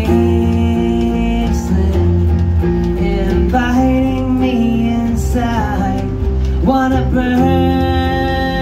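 Live acoustic rock song: a strummed acoustic guitar and an acoustic bass guitar under a man singing long held notes that slide up into each new phrase, with a woman's voice singing along.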